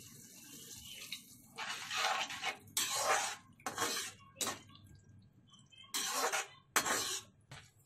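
Water poured from a cup into a steel kadhai of hot masala, then a spatula stirring and scraping against the steel pan in a series of short strokes.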